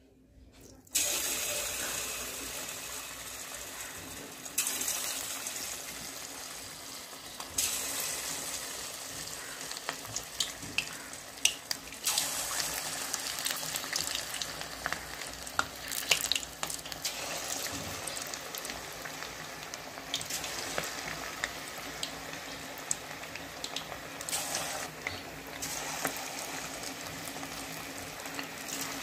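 Cornflour-coated marinated chicken pieces deep-frying in hot oil in a kadhai: a sizzle that starts suddenly about a second in and steps louder a few times, with crackling pops throughout.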